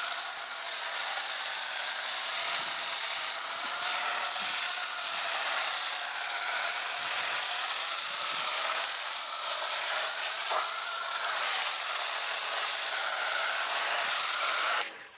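Chemical Guys Big Mouth foam cannon on a pressure washer spraying snow foam: a steady, loud hiss that cuts off suddenly near the end.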